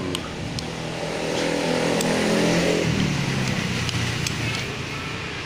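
A motor vehicle's engine running close by, loudest over the first three seconds and then dropping away, with a few light clinks of a metal spoon against a ceramic soup bowl.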